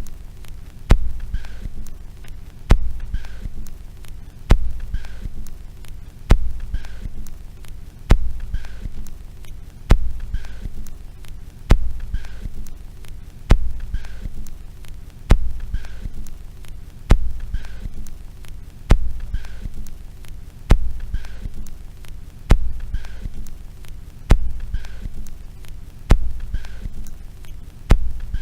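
A low throbbing pulse repeating evenly about every two seconds, each beat opening with a sharp click and followed by a faint high blip, over a steady low hum, like a slow heartbeat.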